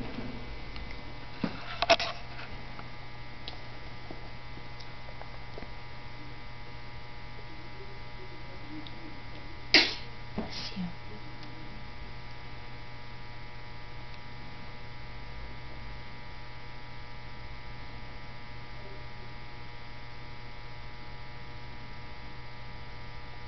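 A steady electrical mains hum made up of a low drone and several faint steady tones. It is broken by a brief click about two seconds in and a louder sharp click or knock near the middle.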